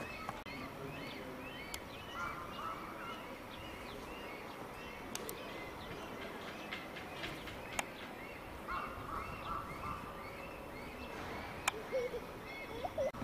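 A group of birds calling together: many short chirping calls repeating and overlapping, with a few sharp clicks among them.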